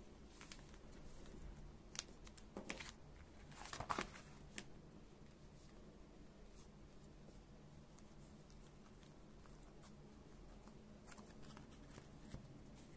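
Faint rustling and crinkling of clear plastic binder sleeves as photocards are handled and slid into the pockets, with light taps and clicks. The sounds are bunched between about two and five seconds in, the loudest near four seconds, with a few more near the end; otherwise quiet room tone.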